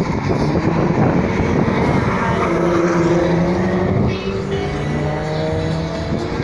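Drag-racing car accelerating hard down the strip, loud, its engine note climbing steadily for a couple of seconds as it pulls away past.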